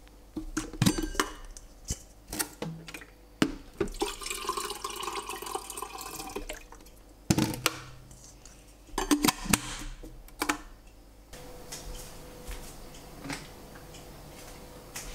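Coffee being made by hand with an electric kettle and a glass French press: scattered clicks and clinks of glass and crockery, water pouring for a couple of seconds near the middle, and a steady faint hiss in the last few seconds.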